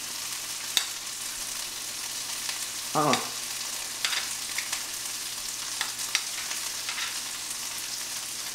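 Food frying in a pan on the stove: a steady sizzle with scattered pops and crackles. A short voice sound, a brief 'mm', about three seconds in.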